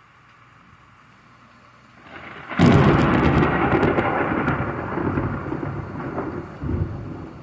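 A thunderclap over light steady rain: faint rain hiss, then about two and a half seconds in a sudden loud crack with crackling, turning into a long low rumble that slowly fades.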